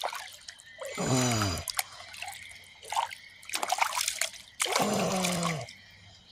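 Water splashing and dripping as mud is washed off a large flathead catfish by hand, in irregular bursts. A man's voice breaks in twice with short wordless grunts, the first falling in pitch, and these are the loudest sounds.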